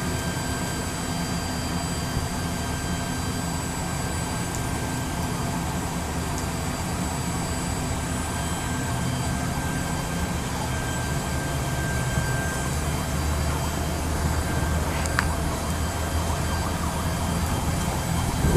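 Steady low rumble of slow-moving road traffic, a little louder in the last few seconds, with a distant emergency vehicle siren faint underneath.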